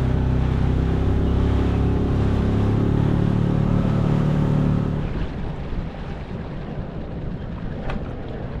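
Inflatable dinghy's outboard motor running steadily under way. About five seconds in the engine sound drops away as the dinghy slows for the dock, leaving the hiss of water and wind.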